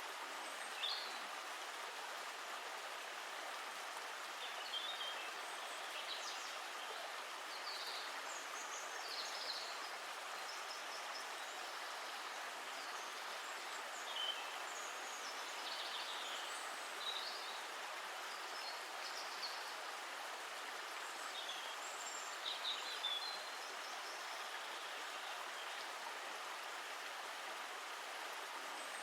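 Steady rushing of a flowing stream, with short high bird chirps now and then.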